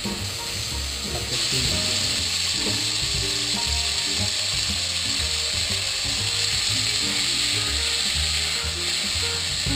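Beef and onions sizzling in hot oil in a pot while being stirred with a spatula; the sizzle grows louder about a second in. Background music plays underneath.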